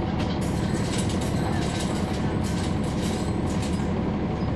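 Cummins ISL9 diesel engine of a 2011 NABI 40-foot transit bus running under way, heard from inside the bus: a steady low drone with a run of sharp rattles and clicks over it.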